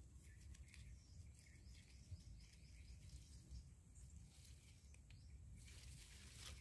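Near silence: faint outdoor background with scattered faint high chirps, and a brief rustling hiss near the end.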